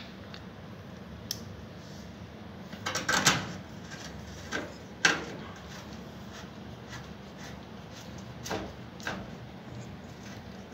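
Scattered scrapes and light metallic clicks of wire mesh being pressed and folded by hand against a stove's sheet-metal edge, loudest in a cluster about three seconds in and a sharp click at about five seconds.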